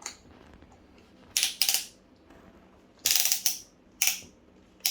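Keyless chuck of a Hychika DD18F cordless drill being turned by hand to grip a bit, ratcheting in about five short bursts.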